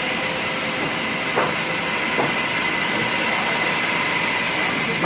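Woodworking machinery running with a steady hiss and a steady high tone, with a couple of light knocks.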